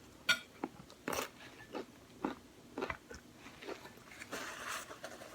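Crunchy hard taco shell being chewed: about eight sharp crunches at uneven intervals, roughly every half second, then softer chewing near the end.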